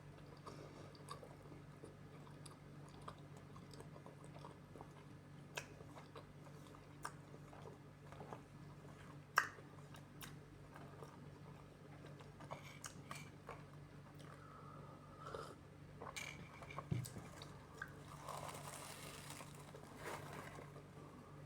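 A person chewing and biting food close to the microphone, with scattered crisp crunches and clicks; the sharpest comes about nine seconds in. A steady low hum runs underneath.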